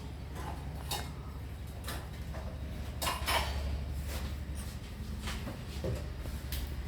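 Kitchen utensils clinking and scraping against pots and dishes, a few short knocks spread out, the loudest about three seconds in, over a steady low hum.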